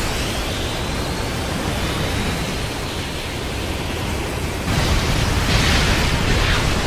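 Anime sound effect of a sword's energy-beam blast: a dense, sustained rushing noise that swells louder about five seconds in.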